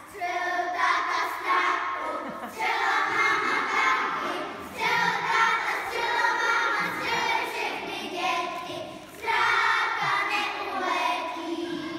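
A group of young children singing a song together, in sung phrases with short breaks between them.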